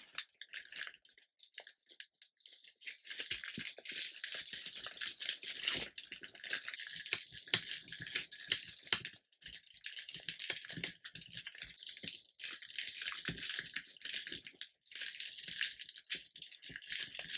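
Air fryer parchment paper liner crinkling and crackling as it is folded and scrunched by hand, a dense run of tiny crackles with a few short pauses.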